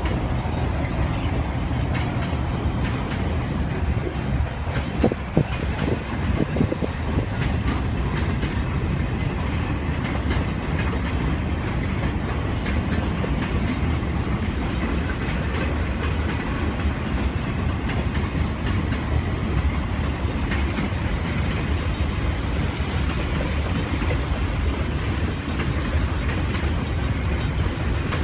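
Railroad cars rolling past with a steady rumble and the clatter of wheels over the rails, with a few brief higher tones about five to seven seconds in.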